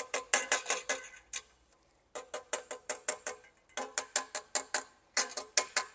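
Rapid light hammer taps on a brass trombone slide tube over a dent rod, about six ringing metallic strikes a second in runs of roughly a second with short pauses: working the collapsed tube out to round.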